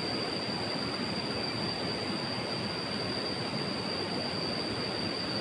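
Steady rushing of river water, an even hiss without breaks, with a thin steady high-pitched tone over it.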